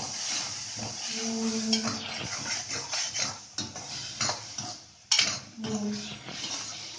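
Steel spatula scraping and stirring tomato-onion masala around a kadhai in repeated strokes, with the masala sizzling in hot oil as it is fried until the oil separates.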